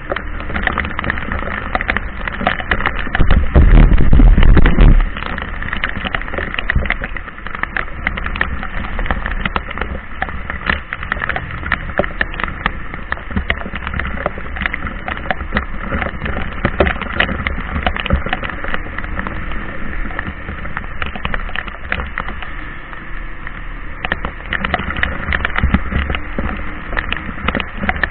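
Heavy rain falling, a dense, continuous pattering of drops. About three seconds in, a loud low rumble lasts for about two seconds.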